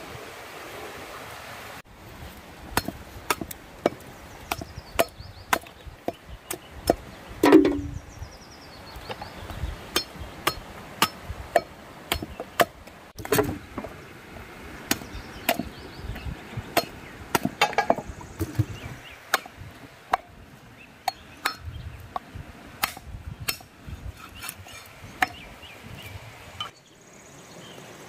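A heavy chopping knife cutting boiled beef trotters into pieces: a long run of sharp, uneven chops, about one to two a second, starting about two seconds in.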